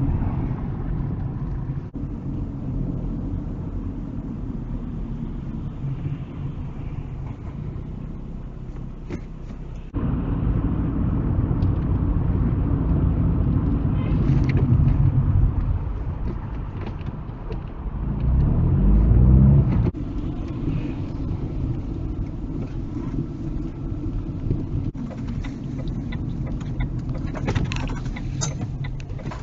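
Road and engine noise heard from inside a moving car, a steady low rumble whose character shifts abruptly several times as the recording cuts between drives. About two-thirds of the way through, the engine note climbs as the car accelerates.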